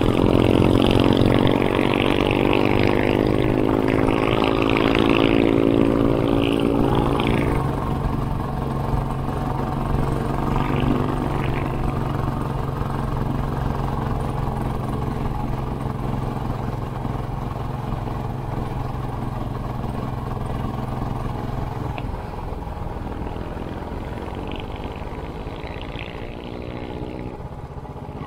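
A Royal Enfield Classic 500's air-cooled single-cylinder engine with a Hitchcock's aftermarket exhaust, running under way on the open road. It is loudest in the first several seconds, then settles into a steadier, gradually quieter note.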